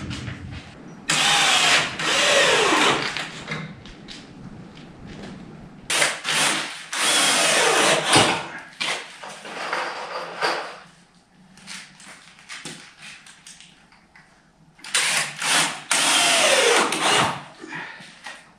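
Power drill running in three bursts of about two seconds each. Within each burst its motor pitch slides down and back up as the trigger and load change.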